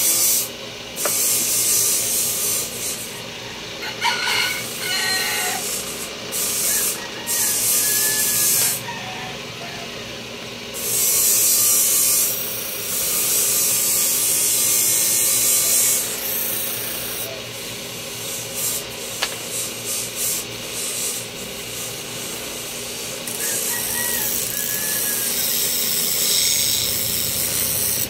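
Steady, hissing abrasive rubbing on metal, as in sanding a tari blade, in long passes of several seconds that stop and start. A rooster crows in the background a few times.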